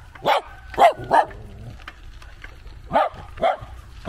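A small dog barking at a passing bicycle: three short barks in quick succession, then two more about two seconds later.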